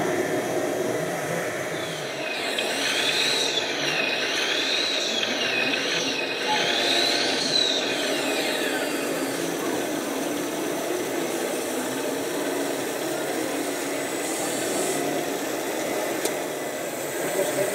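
Whine of a radio-controlled model's small electric motor, rising and falling in pitch several times for about seven seconds from a couple of seconds in, over a steady background hum of a busy hall.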